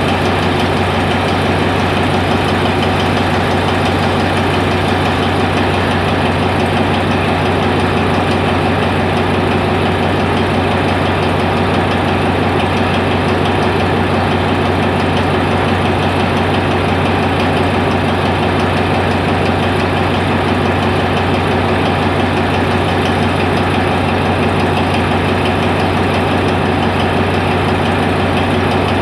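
Diesel locomotive engine idling: a loud, steady low hum with a constant tone above it and no change in speed.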